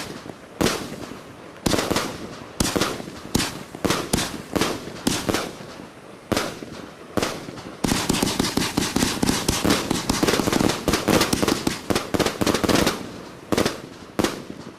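Sky Candy XL firework cake firing. Separate bangs come every half second to a second, then about eight seconds in a rapid volley of bangs runs for some five seconds, followed by a couple of last shots.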